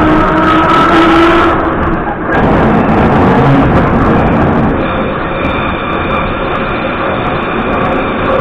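Vintage metro train pulling away from the station and accelerating into the tunnel: traction motor whine over heavy running and wheel noise, settling into a steady run after about five seconds.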